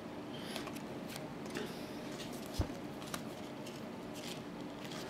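Trading cards being slid across one another and moved through a small stack by hand, giving soft paper swishes and light ticks, with one sharper tap about two and a half seconds in.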